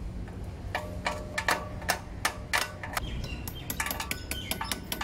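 Small hammer tapping a metal tool against the pad retaining rod of a motorcycle's rear brake caliper to drive it out: a run of sharp, ringing metallic clinks starting about a second in, turning quicker and lighter in the second half.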